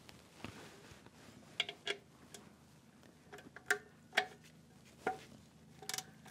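Metallic clicks of a ratchet and 9/16 socket loosening the oil-pan drain plug on a Kubota B2601 tractor: a handful of separate sharp, ringing clicks, then a quick run of clicks near the end.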